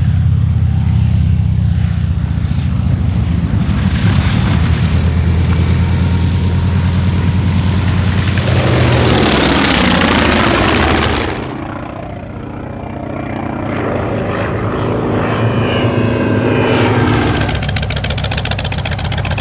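Radial-engine propeller aircraft, among them the T-28B Trojan with its Wright R-1820 nine-cylinder radial, heard in a string of cut-together clips. A steady deep engine drone gives way about ten seconds in to a loud flyby that swells and falls away in pitch. The sound then changes abruptly to a quieter stretch, and from about seventeen seconds an engine runs close by with an even pulse.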